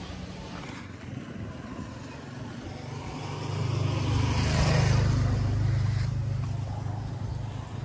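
A motor vehicle passing close by on the street: its engine hum and road noise swell over a few seconds, are loudest about five seconds in, then fade away.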